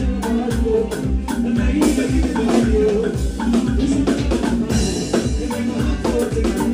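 Live band playing a groove, with a drum kit keeping a busy, even beat under keyboard.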